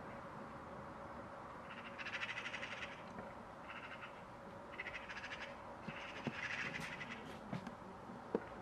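Eurasian magpies chattering: about five short bursts of fast, harsh rattling calls. A few sharp clicks sound near the end.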